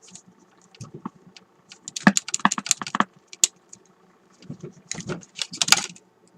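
Sharp clicks and crackles from an RCA M-45 vacuum-tube radio that keeps cutting out, coming in three irregular clusters: a short one about a second in, a longer one around the middle, and another near the end.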